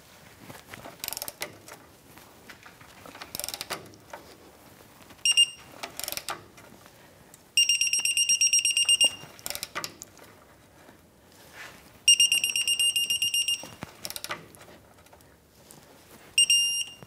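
Electronic torque wrench beeping in rapid pulses as the axle pivot bolt reaches its set torque of 148 foot-pounds. There are two beep runs of about a second and a half each, plus short beeps about five seconds in and near the end, with scattered clicks of the ratchet and wrench between them.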